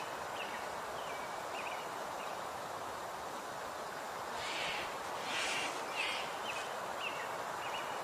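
Outdoor ambience of small bird calls: short chirping notes repeating about every half second to a second over a steady background hiss, with a few brief rustling noises in the middle.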